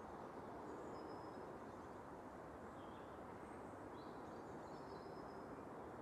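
Outdoor ambience: several faint, short, high bird chirps scattered over a steady low rushing background.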